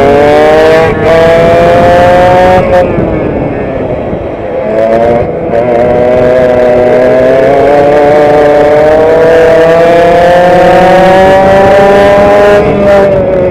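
Onboard sound of a racing kart's two-stroke engine at full race pace: the revs climb, drop sharply as the driver lifts for a corner about three seconds in, then climb steadily along the straight before falling again near the end.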